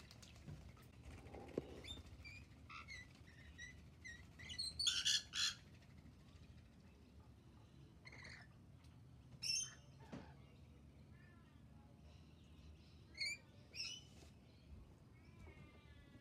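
Rainbow lorikeets calling in short, harsh screeches, the loudest a pair about five seconds in and more around nine and thirteen seconds, among lighter chirps and a quick trill near the end.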